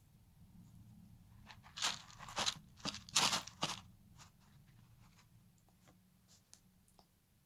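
A lizard crunching a fruit beetle grub in its jaws: a quick run of sharp crunches a second and a half in, loudest about three seconds in, then scattered fainter bites as it chews.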